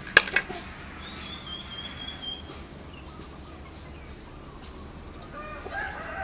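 Birds calling in the background: a thin, wavering high call lasting about a second and a half, then lower warbling calls near the end. Two sharp clicks, the loudest sounds, come right at the start.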